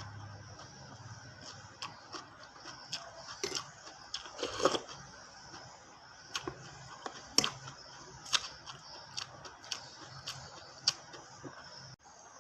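Close-miked mukbang eating of pical: irregular wet mouth clicks and chewing, with a louder crunchy bite about four and a half seconds in.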